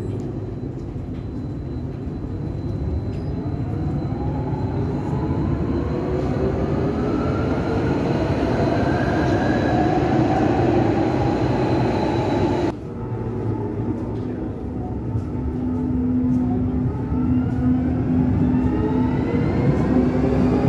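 Bogestra light-rail trains running through an underground station: wheel-on-rail rumble and the whine of the traction motors, rising in pitch. An abrupt cut about two-thirds of the way through leads to a second train, whose motor whine also rises, with a steady hum joining near the end.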